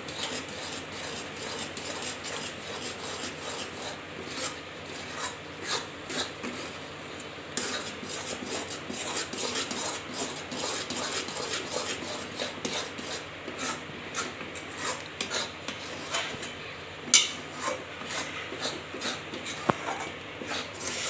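Flat metal spatula scraping and stirring a thick cashew-and-coconut barfi mixture in a steel kadhai, in irregular scraping strokes with light clinks against the pan. One sharper knock comes about two-thirds of the way through.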